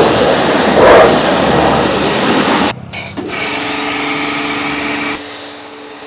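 High-pressure washer spraying water with a loud steady hiss. About two and a half seconds in the hiss cuts off abruptly and a steady machine hum follows, dropping lower about five seconds in.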